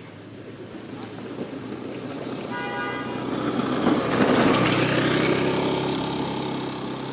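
A motor vehicle passing by, growing louder to a peak about four seconds in and then fading. A short horn toot sounds shortly before it is closest.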